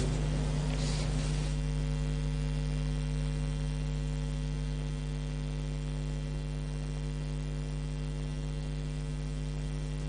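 Steady electrical mains hum: a low, even buzz that holds unchanged throughout.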